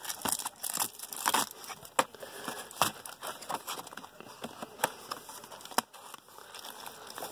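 Cardboard card boxes being shifted and handled by hand: scattered rustling and crinkling with several sharp taps and knocks.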